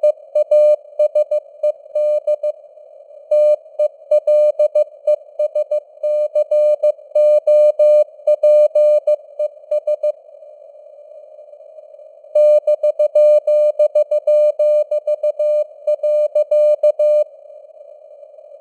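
Morse code (CW) keyed at 15 words per minute as a single tone near 600 Hz, over a steady hiss of simulated radio noise. The keying pauses for about two seconds midway, then stops near the end, leaving only the noise.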